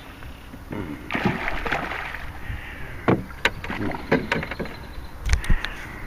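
Water splashing and sloshing beside a small boat as a big hooked bowfin thrashes at the surface. A string of sharp knocks follows, and then two heavy low thumps near the end, the sound of gear and the boat being knocked.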